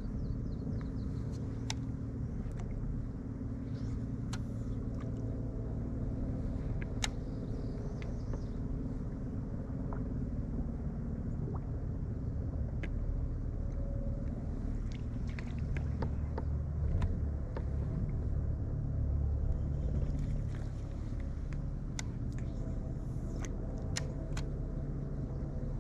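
Steady low hum of a fishing boat's motor running, with scattered sharp clicks and ticks over it.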